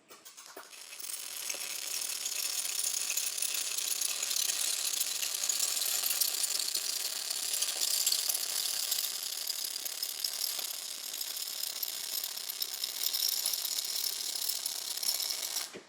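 MAG welding arc crackling steadily as a weld seam is laid. It sputters on at the start, settles into a dense, even crackle within a second or so, and cuts off sharply near the end when the arc is broken.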